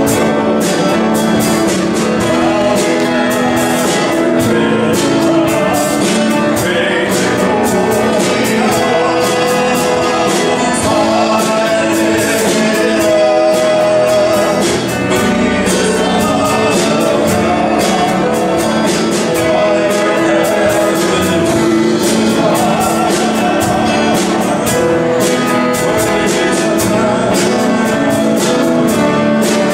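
Live worship band playing a gospel song with singing, on grand piano, drum kit and guitar.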